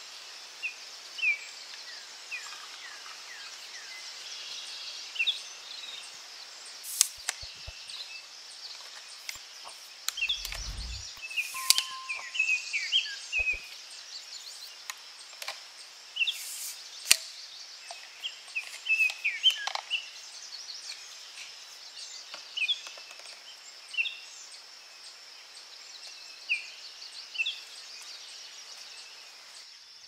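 Small woodland birds singing: many short, high chirps and trills throughout, over a steady high hiss of forest ambience. A few sharp clicks and a brief low thump come near the middle.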